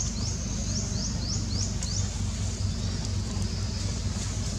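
Steady low mechanical hum, with a quick series of high, rising chirps over the first two seconds.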